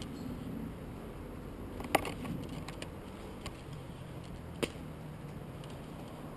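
Low rustling with two sharp clicks, the first about two seconds in and a fainter one about two and a half seconds later.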